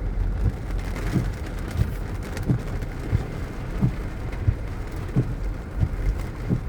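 Rain falling steadily, with irregular low thuds through the steady patter.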